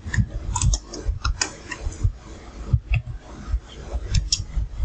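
Computer keyboard keys being pressed, irregular clicks with dull knocks a few times a second.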